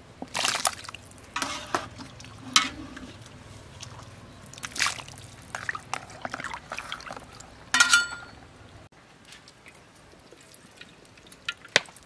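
Blanched vegetables tipped into a bowl of ice water and stirred with a metal ladle: water splashing and sloshing, with several sharp knocks, the loudest about eight seconds in. It goes quieter for the last few seconds.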